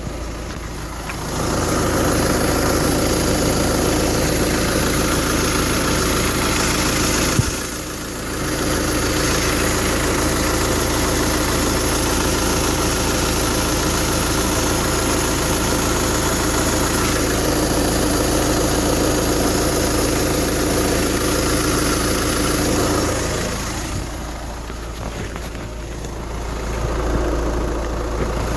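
2012 VW Jetta TDI's 2.0-litre four-cylinder diesel running steadily, with an unusual loud noise from under the front of the car that the owner cannot place and wonders could be the clutch throwout bearing. It drops in level briefly twice, about eight seconds in and again near the end.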